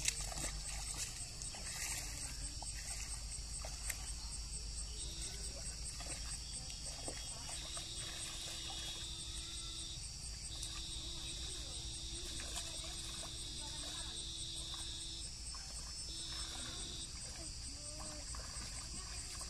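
Steady chorus of insects: a high, continuous shrill with fast, even pulses. From about eight seconds in, a plain steady tone comes and goes in several stretches of a second to a few seconds each.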